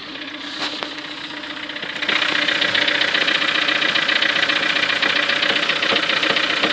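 Ford Focus 3 with the engine running and the steering at full lock; about two seconds in, a loud, fast, continuous knocking rattle starts. It is the knock that the owner puts down to the front drive shaft.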